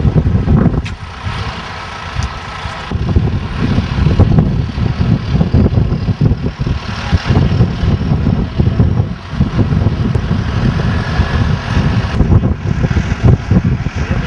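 Tractor engine running, loud and uneven.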